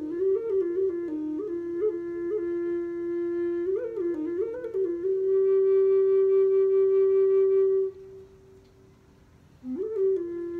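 Low C Native American-style wooden flute playing a slow melody: quick ornamented notes, then one long held note that drops away about eight seconds in. After a breath pause of under two seconds, a new note slides up and is held near the end.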